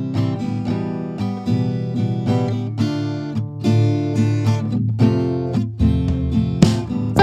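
Background music: acoustic guitar, plucked and strummed notes in a steady run.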